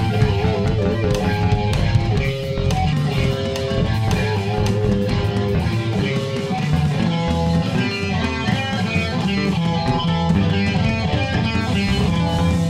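Rock song played on electric guitar over bass guitar and a drum kit, with sustained guitar notes and a steady drum beat.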